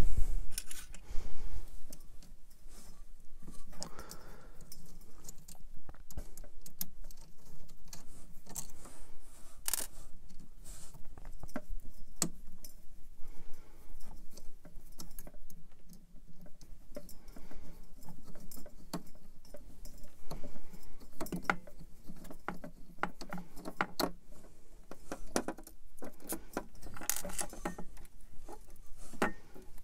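Irregular light clicks and metallic clinks of an Allen key, small screws and printer parts being handled while the hotend mount plate of a 3D printer is taken apart.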